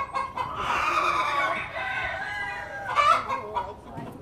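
Chickens clucking and calling, with a rooster crowing in a long drawn-out call.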